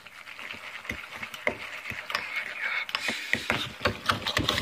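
A metal fork stirring noodles in a bowl: quick clicks and scrapes of the fork against the bowl, coming thicker toward the end.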